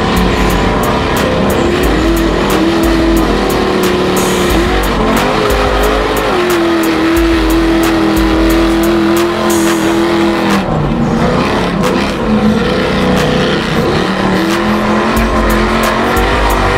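Bogg truck engine revving hard under load as it runs the mud track, its pitch climbing and dropping with the throttle and held high for a few seconds in the middle before falling away. A music track with a steady beat plays underneath.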